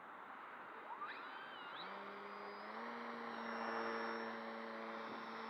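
Small brushless electric motor (Turnigy 2730, 1300kv) on a foamboard RC plane, spooling up with a quick rising whine about a second in, then running steadily with a propeller buzz at take-off power over a steady rushing noise.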